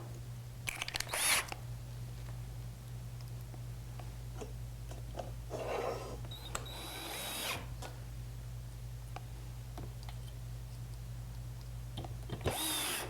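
Electric drill or cordless screw gun with a #2 Phillips bit driving small wood screws into a cabinet hinge, in three short runs: about a second in, a longer one from about six to seven and a half seconds, and one near the end, each with a motor whine that rises and falls.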